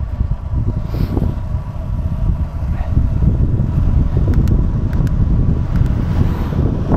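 Wind buffeting the microphone during a fast downhill ride: a heavy, steady rumble, with a faint steady whine underneath and a few light clicks.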